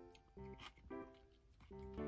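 Quiet background music of short notes that start sharply and fade, following one another every few tenths of a second.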